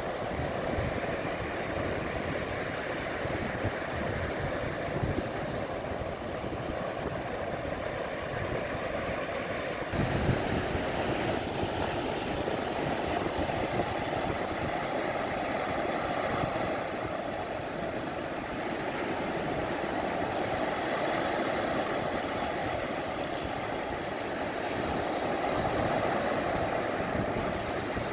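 Surf on a beach: small waves breaking and washing ashore in choppy water, a steady rushing noise.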